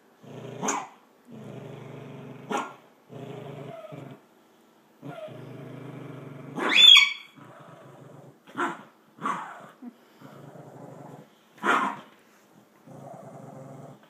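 A cranky dog growling in repeated low growls of about a second each, broken by about six short, sharp barks or snaps; the loudest, a rising yelping bark, comes about seven seconds in.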